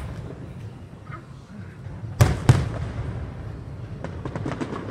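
Aerial firework shells bursting: two sharp booms a quarter second apart a little past two seconds in, then a quick run of crackling pops near the end.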